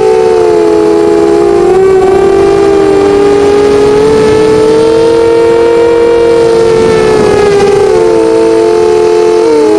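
Eachine 250 FPV racing quadcopter's brushless motors and propellers whining in flight, several close pitches drifting slightly up and down with the throttle and dipping briefly near the end.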